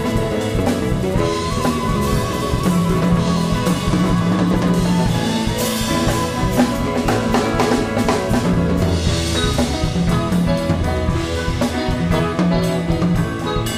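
Live band playing an instrumental passage: a drum kit and congas keeping a busy beat under bass, keyboards and a flute line.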